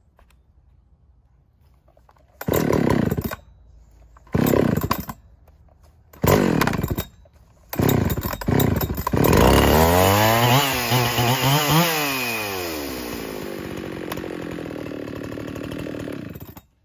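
Husqvarna 372XP two-stroke chainsaw, stock with a Dremel-opened muffler, firing in four short bursts that each fall away before it keeps running. It is revved up and down a few times, settles to a steady idle, then cuts off suddenly near the end. The saw is a little low on fuel.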